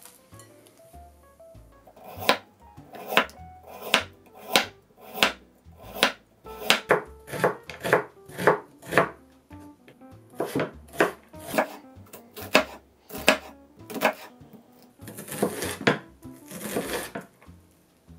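Chef's knife chopping carrot on a wooden cutting board: sharp, regular strokes about one and a half to two a second, starting about two seconds in, with a few longer, duller strokes near the end. Soft background music plays underneath.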